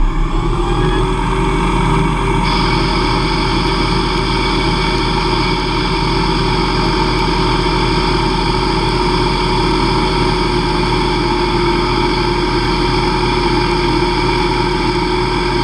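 Small CNC lathe spindle running at 2500 RPM while a Walter CCGT09T301-FN2 carbide insert turns an aluminium bar at a light 0.005" cut: a steady machine whine over a low hum, with a higher hiss joining about two and a half seconds in.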